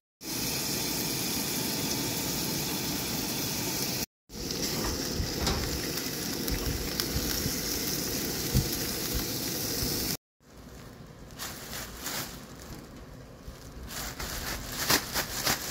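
Steady hiss of a propane camp stove's lit burners under a pot of boiling water, cut off abruptly twice by edits. After the second cut it is quieter, with crackling of a thin plastic bag being handled near the end.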